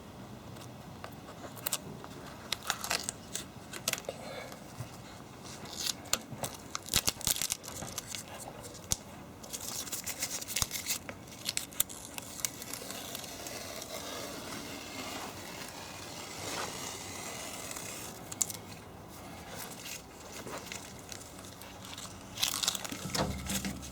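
Irregular rustling and scraping with scattered sharp clicks and taps, as of things being handled close to the microphone.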